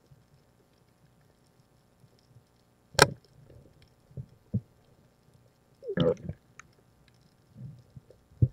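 Underwater, a rubber-powered speargun fires with one sharp, loud crack about three seconds in. Duller knocks follow, and a louder muffled burst comes a few seconds later as the speared fish is handled on the shaft.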